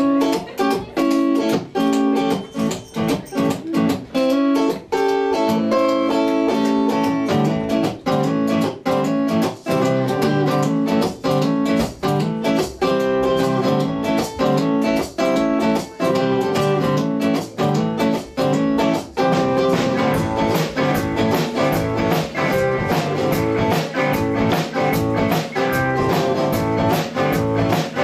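Roots rock and roll band playing an instrumental intro on strummed acoustic and electric guitars, without vocals. The sound fills out in the low end after about five seconds and then runs on steadily.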